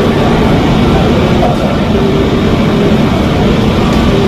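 Airbus A320neo-family airliner's twin jet engines running at taxi power as the jet rolls slowly in to its stand: a loud, steady rumble with a few faint steady tones over it.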